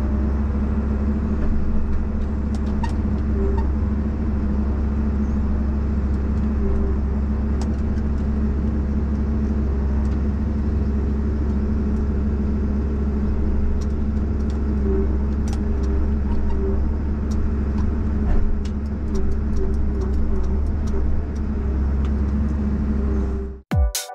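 Valmet 860 forwarder's diesel engine and crane hydraulics running steadily, heard from inside the cab, with faint scattered clicks and knocks. Loud electronic music cuts in just before the end.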